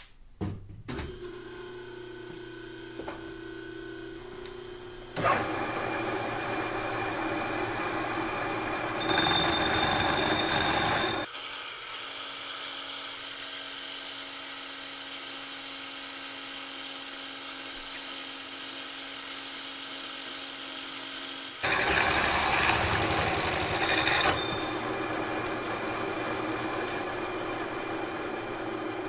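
Milling machine spindle driving an annular cutter into a metal plate. The cutting noise rises and falls with the feed pressure, and a high squeal comes twice, loudest just before halfway and again about three quarters through. Between the squeals it settles back to a steady machine hum.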